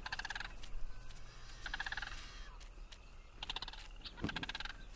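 Sandhill cranes giving rolling, rattling calls, four in a row. They are calling to drive intruding grizzly bears away from their territory.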